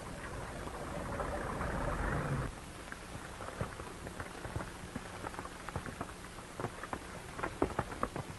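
A 1930s touring car's engine running as the car pulls away, cut off abruptly about two and a half seconds in. After that, scattered irregular clicks and crackle over a low hum, thickest near the end.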